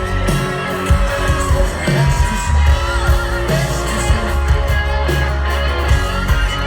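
Country-rock music with electric guitar over a steady bass line and drum beat, with faint singing.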